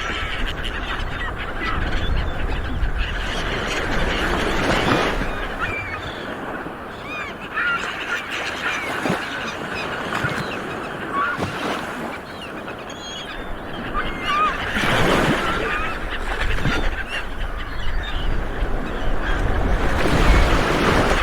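Sea waves washing in, swelling and easing off several times, with birds giving many short calls over them.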